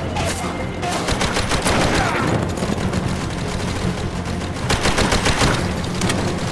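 Bursts of rapid automatic gunfire: a long burst about a second in and a shorter one near five seconds, over a steady low rumble.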